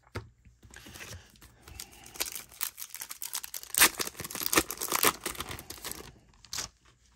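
Plastic wrapper of a 1991 Score baseball card pack being torn open by hand, crinkling and tearing. It builds about two seconds in, is loudest around four to five seconds, and stops about six seconds in, followed by a short rustle.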